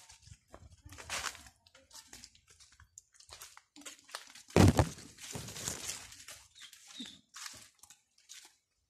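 Crackling and crunching of dry leaf litter and plants rustling as people walk through a garden, in short irregular bursts. A loud knock, likely the phone being handled, stands out about four and a half seconds in.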